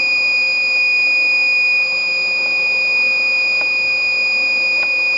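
Buzzer on a Xilinx Spartan FPGA board sounding one continuous high-pitched tone: the countdown timer's alarm is on. Two faint clicks come near the end.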